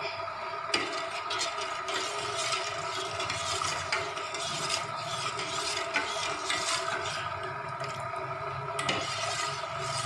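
Long-handled spoon stirring sugar into water in a stainless steel pot to dissolve it for sugar syrup, scraping and clinking against the pot's bottom and sides in irregular strokes. A steady whine of several tones runs underneath.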